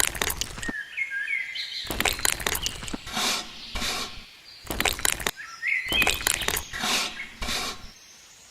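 A series of short, loud scraping or crunching noises from work being done, with birds chirping in the background, twice.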